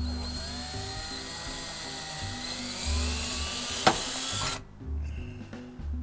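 Cordless drill running for about four and a half seconds, its pitch wavering, with a sharp click near the end before it cuts off suddenly. Background music with a steady bass line plays underneath.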